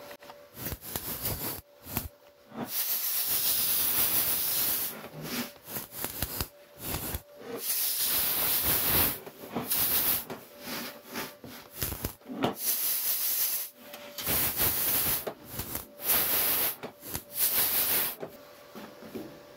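Compressed-air blow gun blasting air onto a freshly welded steel panel in repeated hissing bursts, some short and some a couple of seconds long, stopping shortly before the end. The air is cooling the weld between spots to keep the heat under control.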